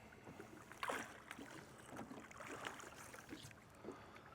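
Faint water and boat sounds: low lapping with a few light knocks, and one brief louder rush about a second in.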